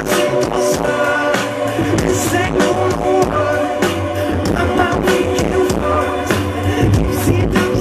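Indie pop band playing live: the lead singer sings into a handheld microphone over bass, keys and drums with a steady beat, as heard from the audience.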